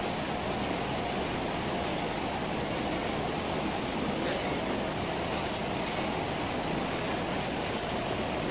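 Steady, even machine noise from a 360° cylinder UV printer running as it prints a rotating stainless steel bottle.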